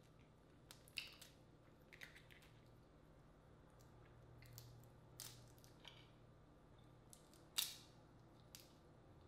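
Boiled crawfish shells cracking and snapping as they are peeled by hand: a handful of scattered sharp cracks over a quiet background, the loudest about seven and a half seconds in.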